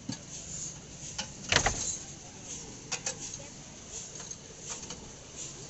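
Handling knocks and clicks with the engine stopped: a single heavy thump about a second and a half in, then a couple of sharp clicks and lighter taps as the cap of a plastic lubricant jug is worked loose.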